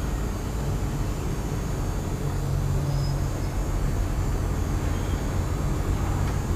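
Steady low background rumble with a faint even hiss.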